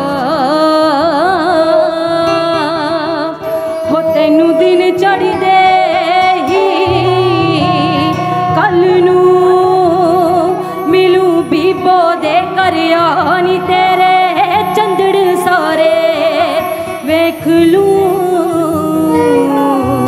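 Female vocalist singing a Punjabi folk song in long, ornamented, wavering phrases, over live band accompaniment with a steady, repeating low bass line.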